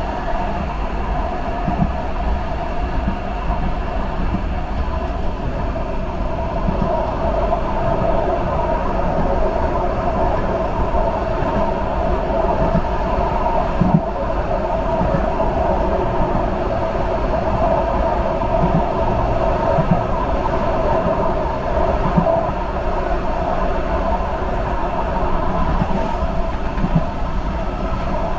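Subway train running steadily along the track, with a constant rumble and hum and a few short clicks now and then.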